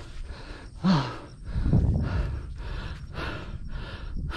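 A person panting hard, out of breath, quick breaths about three a second with a short falling voiced gasp about a second in. A low rumble comes up briefly around the middle.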